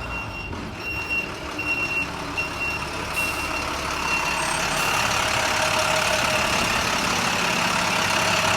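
A vehicle's reversing alarm beeping at an even pace with one high tone, over motor-vehicle noise that grows louder from about four seconds in.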